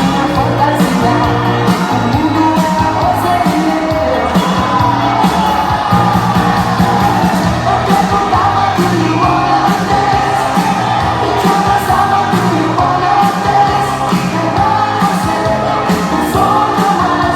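Upbeat pop song with singing and a steady beat, played loud for a dance workout.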